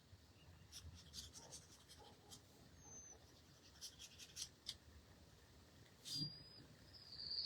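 Faint drawing strokes on paper, short scratchy strokes made while long, sketchy lines are drawn. A brief high chirp sounds about three seconds in and again near the end.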